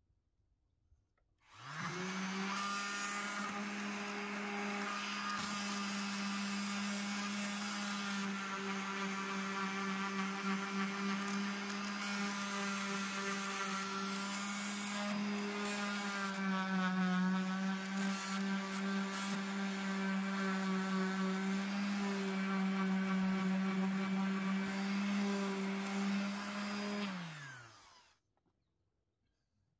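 Electric orbital sheet sander starting about a second and a half in and running steadily against a louvered wooden door. Its pitch dips briefly midway, and it winds down near the end.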